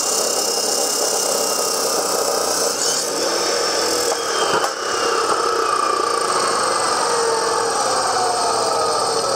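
DeWalt D28710 14-inch abrasive chop saw grinding through 1/8-inch-wall 3-inch square steel tubing. About three seconds in the wheel comes free of the cut. There is a single clunk about a second later, and then the motor and wheel wind down with a slowly falling whine.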